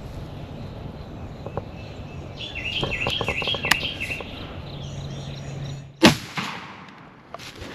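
Songbirds singing, then about six seconds in a single loud gunshot that echoes away: the hunter's shot at a wild turkey gobbler about 50 to 60 yards off.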